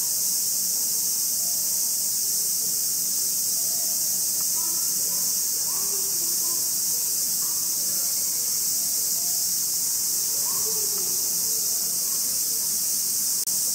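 Cicadas singing in a steady chorus, a loud high-pitched hiss with no pause. Faint voices murmur underneath.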